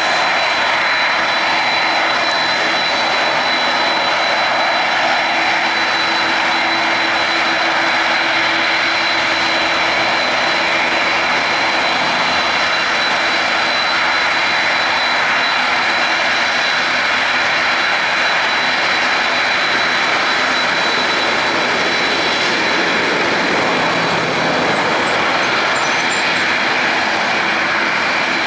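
Jet engines of a Boeing 767-300ER running steadily on the runway: a loud, even jet roar with a thin, steady high whine over it.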